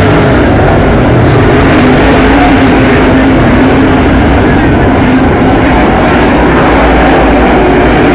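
A pack of speedway race cars running laps on a dirt oval, their engines blending into one loud, steady sound.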